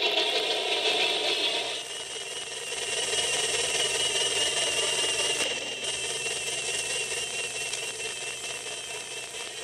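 HO-scale model trains running on the layout: a steady rattle of small wheels over the track. About two seconds in the sound changes and a thin wavering whine joins in as a model diesel locomotive rolls past.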